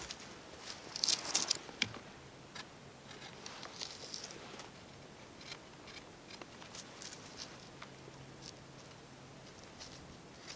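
Knife blade shaving and scraping a wooden branch by hand: a quick run of rasping strokes about a second in, another around four seconds, then scattered lighter scrapes and small clicks.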